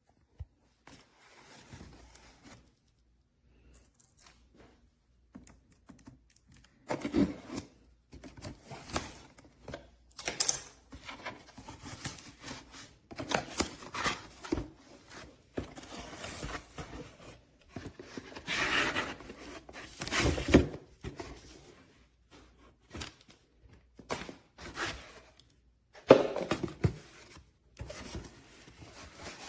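Irregular handling noises: scattered scrapes, scuffs and knocks at uneven spacing, loudest about two-thirds of the way through and again near the end.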